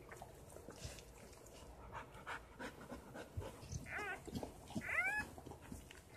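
A newborn puppy crying: two short, high squeaks about four and five seconds in, over faint rustling and clicks of handling.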